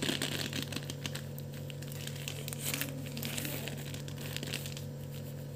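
Plastic packet of cornflour crinkling as it is tipped and shaken over a bowl, the flour pouring out. Crackles are densest in the first few seconds and thin out toward the end.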